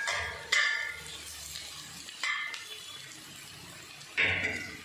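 Sliced onions sizzling in olive oil in a cast-iron pot, stirred with a spatula that scrapes against the pot about every two seconds with a brief ringing each time.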